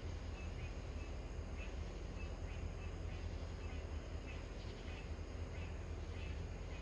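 Insects chirping in short, repeated high chirps, roughly once or twice a second, over a steady low rumble.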